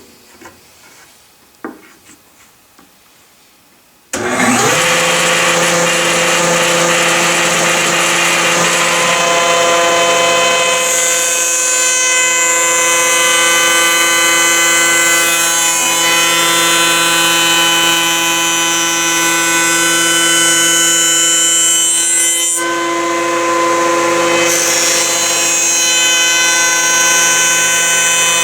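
A few light handling clicks, then about four seconds in a woodworking router's motor switches on and comes up to speed at once. It runs at a steady pitched whine with a high hiss, the cutter spinning to shape beehive frame sidebars from 2x4 stock.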